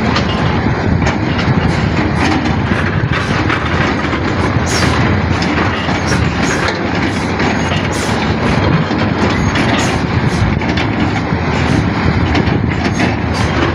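Excavator at work loading a lorry: a heavy diesel engine running steadily, with many sharp metallic clanks and knocks scattered through it.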